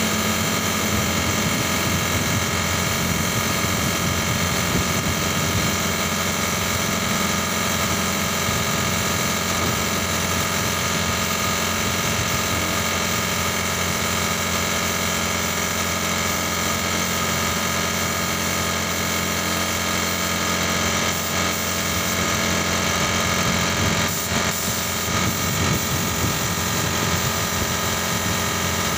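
Compressed-air paint spraying: a gravity-feed spray gun hissing over a steadily running air compressor, dipping briefly a couple of times in the last third.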